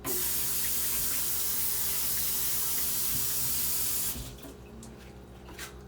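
Kitchen sink tap running steadily into the sink for about four seconds, then shut off.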